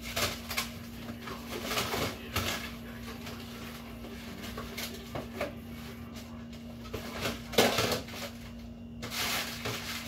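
Things being shifted around inside an open freezer compartment to make room for a tray: scattered knocks, clatters and rustling, busiest about two and a half seconds before the end, over a steady low hum.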